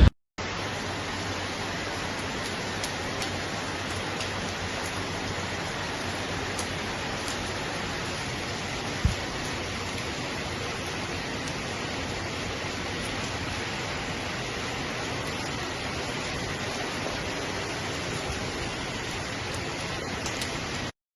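Steady, even hiss of heavy water, rain or rushing floodwater from a tropical cyclone, with a few faint ticks and one short knock about nine seconds in.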